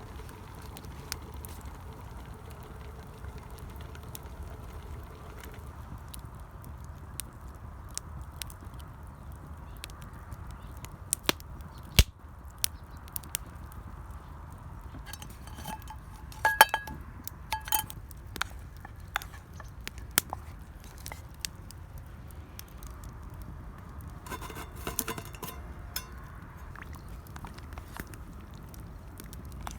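A metal spoon clinking against metal cookware in short clusters of ringing clinks, about 16 seconds in and again about 25 seconds in, among scattered sharp clicks over a steady low background. One sharp knock about 12 seconds in is the loudest sound.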